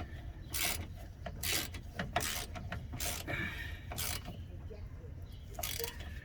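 Ratchet wrench being worked in short strokes, each a quick burst of pawl clicks, about six times, tightening the bolt of a steering link joint.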